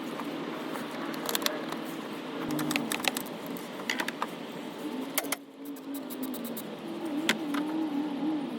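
Metal hand tools clinking and tapping irregularly as a socket and wrench work the starter-mounting bolts loose, over a steady low hum.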